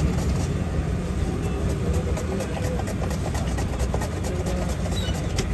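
A steady low rumble like an idling engine, with scattered light clicks over it.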